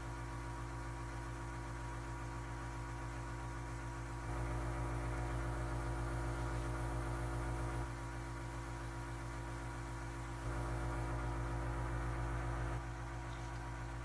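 Airbrush compressor humming steadily, growing louder twice for a few seconds while the airbrush sprays.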